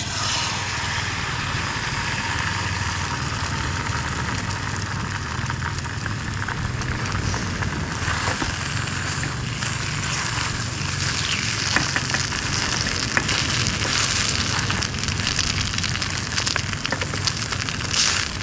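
Bread frying in butter in a pan, with steady sizzling and scattered crackles and pops.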